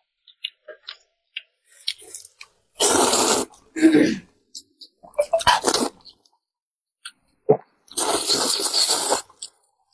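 Glass noodles being slurped loudly in several long noisy pulls, the longest near the end, with small wet mouth clicks before them.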